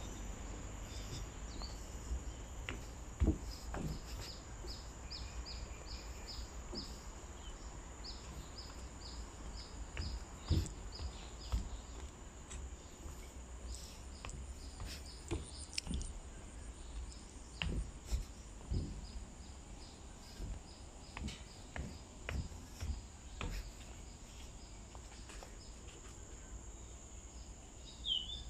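Mangrove ambience: insects keep up a steady high drone, with runs of short chirps at about three a second and a few bird calls, including a falling call near the end. Scattered low knocks come and go, the loudest about three seconds in.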